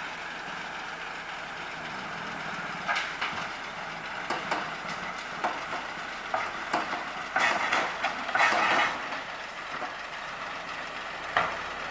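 Heavy machine's diesel engine running steadily while old, partly rotted wood and brush crack and crunch in irregular bursts as they are pushed and loaded, loudest in the middle and again near the end.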